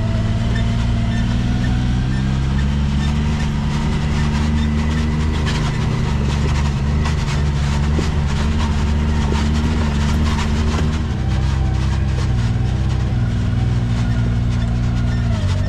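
Side-by-side UTV engine running steadily on a rough mountain trail, with scattered clicks and rattles from the ride. The engine pitch dips briefly near the end.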